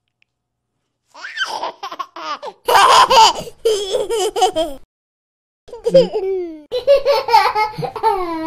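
A baby laughing and babbling in several bursts, loudest about three seconds in.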